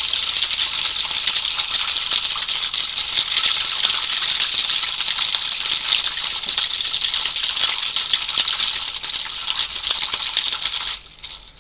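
Ice rattling in a cocktail shaker being shaken hard and fast, a dense steady rattle that stops abruptly near the end.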